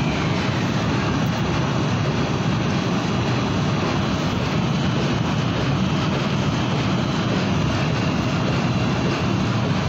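Steady, loud rushing noise with a low hum, unchanging throughout, like a fan or motor running close by.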